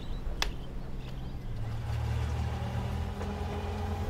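An engine running steadily at low speed, its hum getting louder about one and a half seconds in, with a single sharp click about half a second in.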